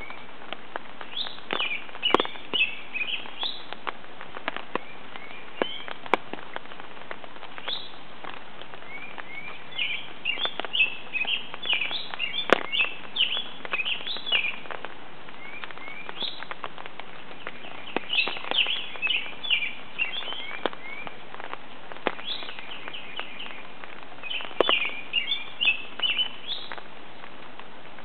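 A songbird singing repeated bursts of quick chirping notes every several seconds, with raindrops ticking on an umbrella overhead.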